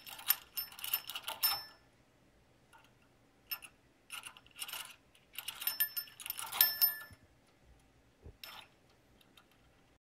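Small metal bell on a cage toy jingling in several bursts with pauses between, with brief ringing tones, as a cockatiel pokes its head up into it.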